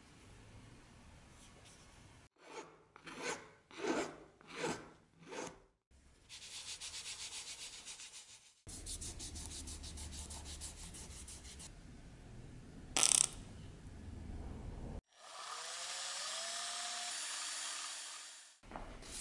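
A wooden knife handle being rubbed by hand: about five separate strokes, then steady rubbing broken by a short sharp sound. Near the end a cordless drill runs for a few seconds in a small plastic cup, its motor pitch rising as it spins up.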